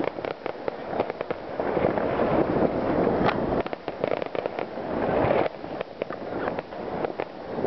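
Fireworks display: a dense, continuous run of bangs and crackling, burst after burst overlapping, with the volume swelling and easing every second or so.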